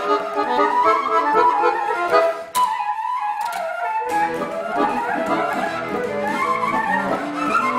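Kaval and accordion playing a Bulgarian folk tune together. About two and a half seconds in, the accordion drops out for a second and a half, leaving the kaval alone on a held note, then the accordion comes back in.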